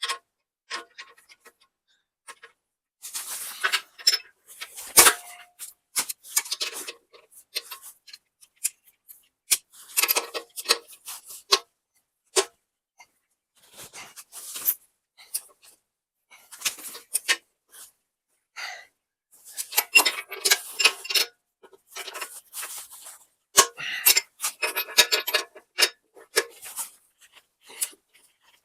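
Wrench and socket working on steel bolts: short bursts of metallic clicking and clinking, with quiet pauses between them.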